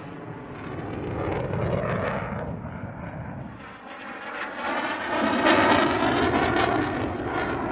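F-16 Fighting Falcon jet fighter flying overhead, its single turbofan engine giving a steady rushing jet noise. The noise swells about a second in, fades briefly midway, then comes back louder for the second half.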